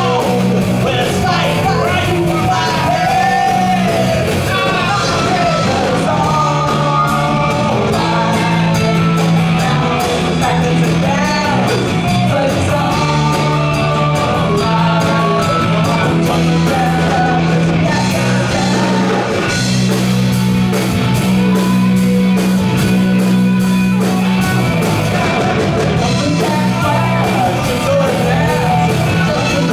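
Live rock band playing: electric guitars, bass guitar and drum kit under a singer.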